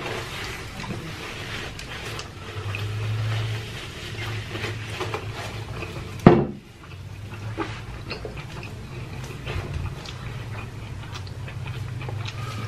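Chewing and mouth noises of a person eating a burger, with many small wet clicks over a low steady hum and one sharp click about six seconds in.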